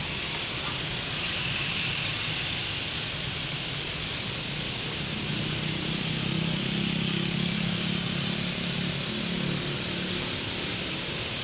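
Passenger train running across an elevated railway bridge: a steady rumble and hiss mixed with street traffic, with a low engine hum that swells about five seconds in and eases off near the end.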